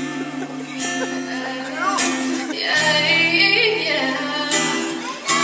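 Pop song playing: strummed acoustic guitar and held chords, with a woman's voice singing.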